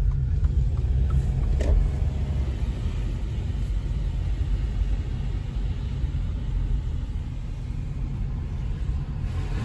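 Car driving, heard from inside the cabin: a steady low rumble of engine and tyres on wet pavement.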